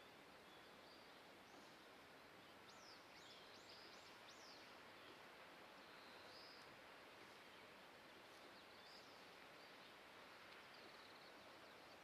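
Faint, steady rushing hiss of the distant Nachi waterfall, with faint bird chirps over it: a quick run of chirps about three seconds in and a few single calls later.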